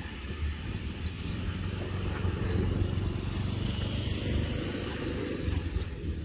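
A motor vehicle's engine passing by: a low steady rumble that swells about halfway through and then eases off.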